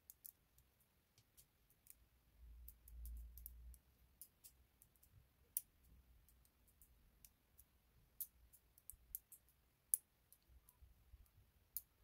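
Small magnetic balls clicking as they snap one by one onto a sheet of magnetic balls: faint, sharp, irregular clicks, a few louder than the rest. A brief low rumble from handling comes about three seconds in.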